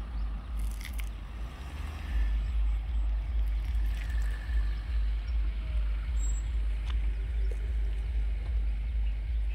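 Wind buffeting the phone's microphone, a gusting low rumble that rises and falls throughout.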